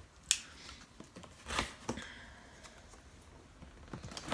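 Cardboard box and packaging being opened and handled by hand: scattered clicks and rustles, with a sharper snap just after the start and a louder scrape about a second and a half in.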